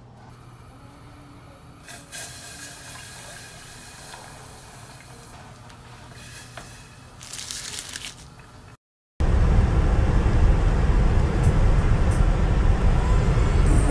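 Faint kitchen handling sounds from a small hand-operated food chopper and a steel saucepan on a gas stove, with two brief louder bursts. After a sudden cut about nine seconds in comes loud, steady road and engine noise inside a car at motorway speed.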